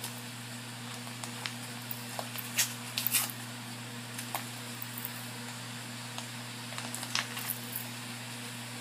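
Ground beef frying gently in a skillet, with sparse, irregular small crackles and pops over a steady low hum.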